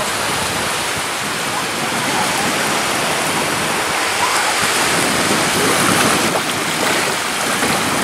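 Small sea waves washing onto a sandy shore: a steady rush of surf.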